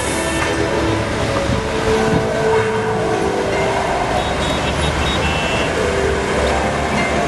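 Projection-show soundtrack playing outdoors: sustained electronic tones that shift in pitch every second or so, over a steady, noisy wash.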